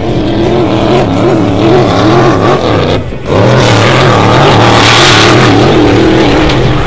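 GP2 hydroplane's engine running hard at speed, its pitch wavering up and down as the boat skims across the water. It dips briefly about three seconds in, then comes back louder with a rushing hiss around the five-second mark.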